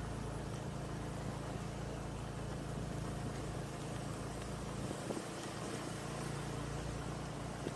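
Motorcycle engine running steadily while riding, with a low hum under wind and road noise on the microphone.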